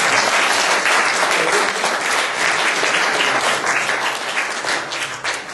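Church congregation applauding, a dense steady clapping that dies away at the end.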